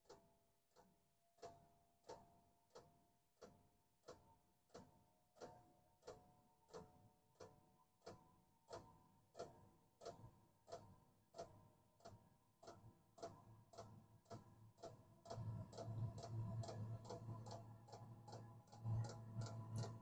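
Diesel heater's fuel dosing pump ticking about one and a half times a second during start-up, over the faint whine of its fan spinning up. The ticks come closer together near the end, and about fifteen seconds in a low hum from the heater grows in.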